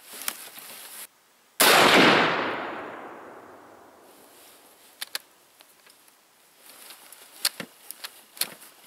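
A single shot from a scoped Mosin-Nagant 91/30 rifle in 7.62x54R, about one and a half seconds in, with a long echo dying away over about two seconds. A few short, sharp clicks follow near the end.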